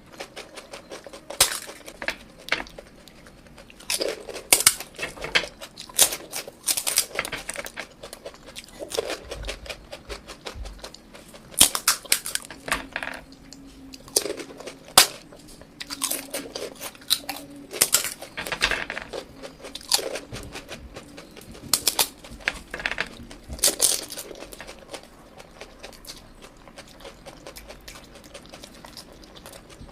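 Close-up crunching and chewing of crispy food: irregular clusters of crisp, crackling bites and chews, with quieter chewing between them.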